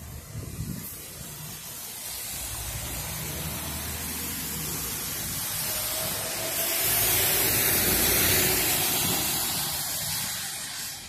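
Tyres hissing on the rain-soaked road as traffic goes by. The spray swells to its loudest about seven to nine seconds in, then fades near the end.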